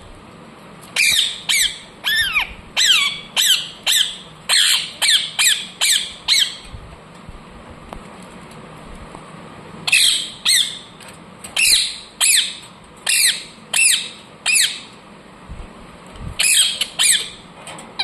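Indian ringneck parrot (rose-ringed parakeet) squawking: runs of short, harsh screeches about two a second, broken by a pause of a few seconds in the middle.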